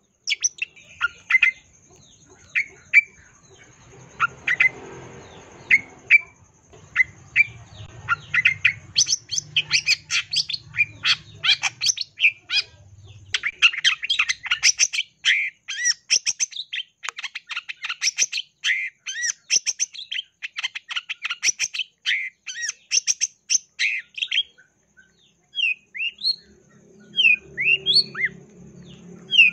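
Long-tailed shrike (cendet) singing: scattered sharp chips at first, then from about nine seconds a fast, dense run of shrill varied notes, ending with a few slurred rising calls.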